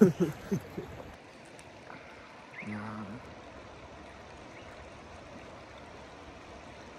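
Steady rush of a mountain river flowing. A man's speech trails off in the first second, and a short voiced hum comes about two and a half seconds in.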